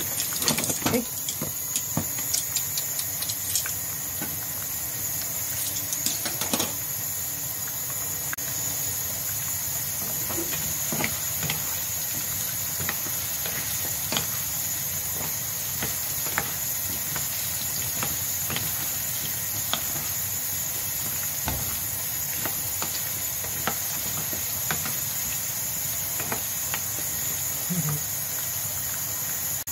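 Potato and carrot chunks frying in oil in a nonstick pan: a steady sizzle, with scattered clicks and scrapes of a wooden spatula stirring against the pan, most frequent in the first several seconds.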